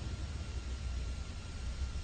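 Steady background hiss with a low rumble, no distinct events.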